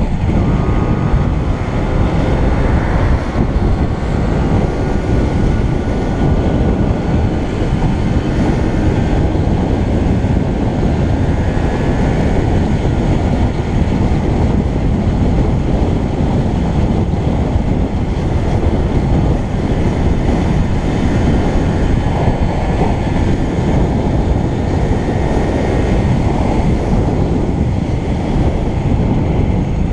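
Loud, steady wind rumble and road noise on the microphone of a camera riding along a street on a moving vehicle. A faint whine wavers in pitch during the first few seconds.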